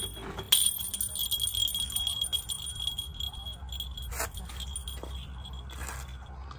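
Continuous light jingling, like a small bell being shaken, with a sharp click about half a second in and another around four seconds.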